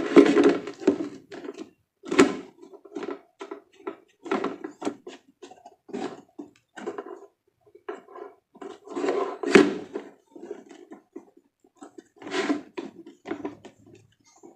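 Irregular knocks, clacks and rustling from parts of a Sekai 16-inch stand fan being unpacked and handled, with two sharper knocks about two seconds in and near the middle.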